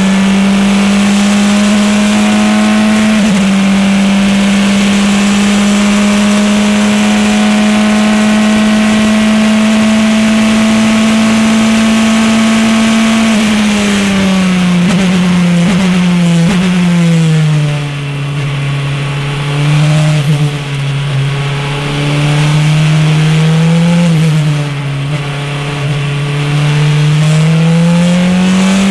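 Praga R1T racing prototype's engine heard from the cockpit, running flat out at high revs with a quick upshift about three seconds in. From about halfway through its note drops in a series of steps as the car brakes and downshifts for a corner. It then runs lower and quieter on part throttle and revs up again near the end as the driver gets back on the power.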